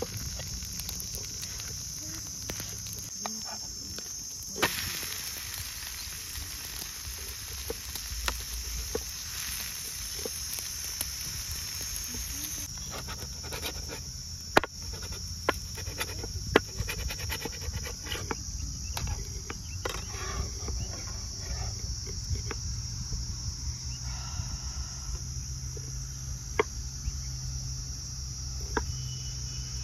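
A steady high-pitched insect chorus, with scattered sharp clicks and scrapes of a metal spatula on an iron tawa, thickest around the middle.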